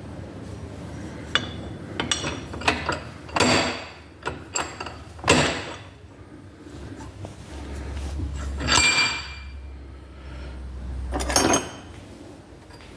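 Small steel parts and tools clinking and knocking as they are handled on a workbench: an irregular series of sharp metallic clicks, a few ringing briefly.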